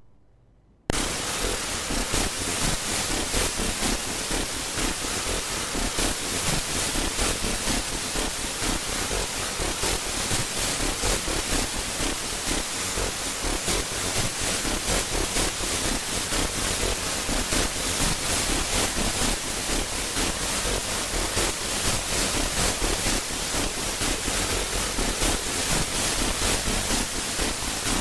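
Steady hissing static from an 8-bit R-2R resistor-ladder DAC driven by a microcontroller's port D (PD0-7), starting abruptly about a second in.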